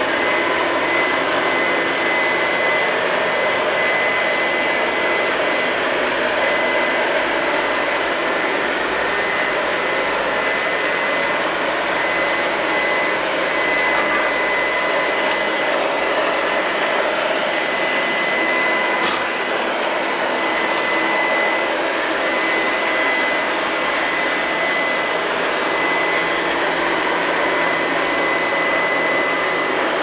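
LL-283 (Q5) robot vacuum cleaner running steadily, its suction fan giving a constant rushing hum with a steady high whine as it cleans a tiled floor.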